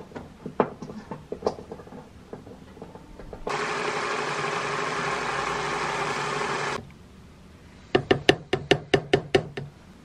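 Hand blender with a chopper-bowl attachment running for about three seconds, puréeing tomatoes, starting and stopping abruptly. Before it come scattered knocks of the plastic bowl being handled, and near the end a quick run of about ten sharp knocks.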